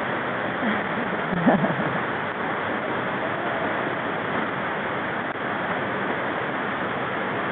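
Steady rushing noise outdoors, with a brief voice call about a second and a half in.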